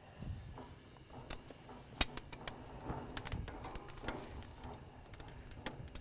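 Metal barbecue tongs clicking and clacking against the grill grate as whole red bell peppers are set down to char. There are many short clicks, with one sharp clack about two seconds in.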